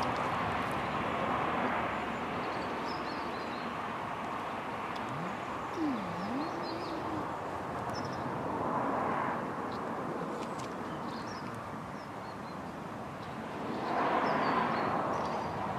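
Outdoor rushing background noise that swells a little about halfway through and more strongly near the end, with faint bird chirps over it and a brief low tone that dips and rises about six seconds in.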